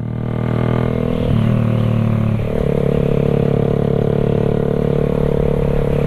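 Suzuki Raider 150 carb's single-cylinder four-stroke engine running at highway speed through an open Creed aftermarket exhaust, a loud, full-bodied exhaust note rather than a tinny one. Its pitch changes about a second in and steps to a new steady note about two and a half seconds in.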